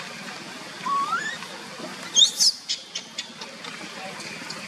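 Baby macaque calling: a rising squeal about a second in, then a shorter, higher, sharper squeak about two seconds in, followed by a few faint clicks, over a steady background hiss. The calls are typical of a hungry infant crying for its mother.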